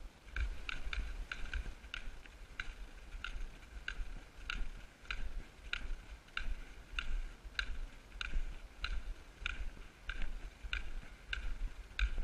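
Footsteps on packed snow while walking: a short squeaky click with each step, a little under two a second and very regular, over a low rumble of movement.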